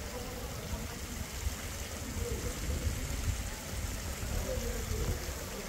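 Water from the Elephant Fountain's spouting elephant trunks splashing steadily into its stone basin, with a low rumble underneath and faint distant voices.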